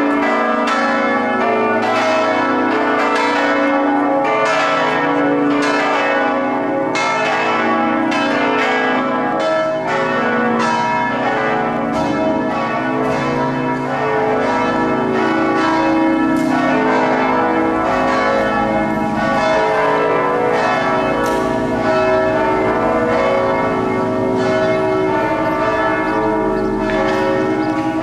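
Church bells of a Greek Orthodox monastery ringing a continuous peal. Several bells of different pitch are struck in quick succession, each stroke ringing on into the next.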